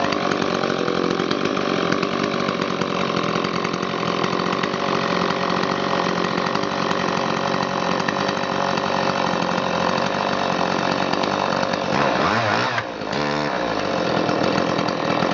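Stihl 019T top-handle two-stroke chainsaw running steadily after starting, revved up and down briefly a couple of times near the end.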